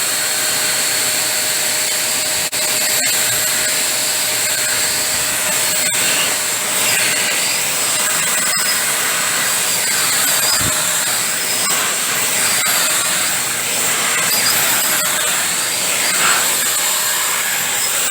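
Deerma handheld vacuum cleaner running steadily: an even rush of air with a high motor whine.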